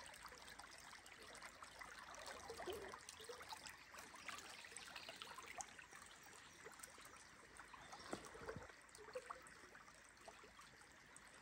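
A creek trickling faintly and steadily, with a few light ticks.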